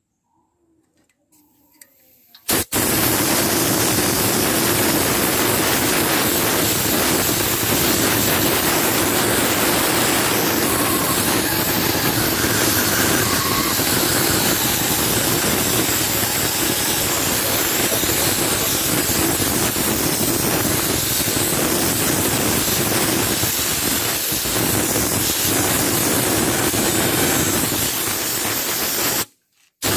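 High-pressure washer lance spraying a jet of water onto a removed cylinder head to clean it: a loud steady hiss that starts about two and a half seconds in and stops briefly near the end.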